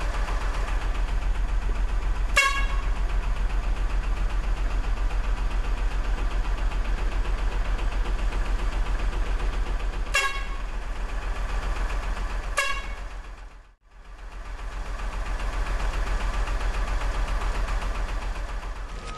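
Truck engine running with a steady low pulsing drone, with three short horn toots: one a couple of seconds in, then two about two seconds apart past the middle. The engine drone drops out for a moment soon after the last toot and comes back.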